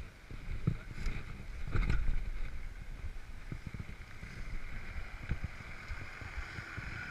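Jeep Wrangler's engine running as it creeps up and past on a gravel track. Frequent low knocks and wind on the microphone are mixed in, loudest about two seconds in.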